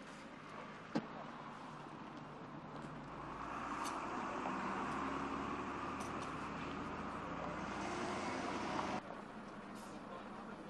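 Roadside outdoor noise with a sharp click about a second in; a rumbling swell builds from about three seconds and cuts off abruptly about nine seconds in.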